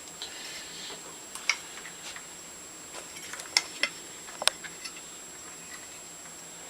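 A few scattered light clicks and taps of small metal parts of a Stanley No. 113 circular plane being handled and fitted during reassembly, the sharpest about one and a half and four and a half seconds in.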